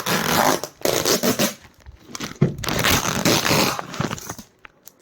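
Parcel packaging being pulled and torn open by hand: several bursts of ripping noise with short pauses between.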